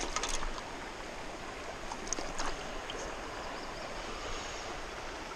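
Shallow river running over rocks: a steady rush of water. A few brief splashes and clicks come just after the start and again about two seconds in.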